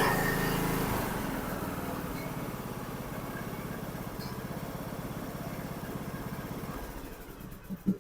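John Deere LA125 riding mower's engine running smoothly and evenly, now that it has been repaired after flooding. It grows gradually quieter and then stops just before the end.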